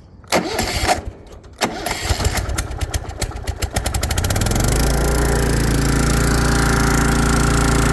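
Choked Kohler 18 hp engine on a Hustler FasTrak zero-turn mower cranking on its starter, with a few short bursts and then a quickening run of cranking strokes, catching about four and a half seconds in. It then runs steadily and smoothly.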